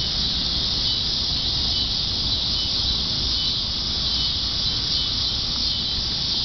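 Steady chorus of night insects such as crickets, an unbroken high-pitched shrilling, over a low rumble.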